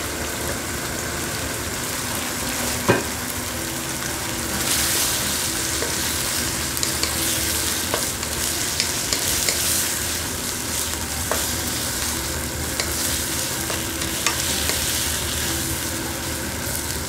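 Chopped vegetables and chicken sizzling in a nonstick frying pan while a wooden spatula stirs and scrapes them, with light taps of the spatula on the pan. The sizzle gets louder and brighter from about five seconds in, and there is one sharp knock about three seconds in.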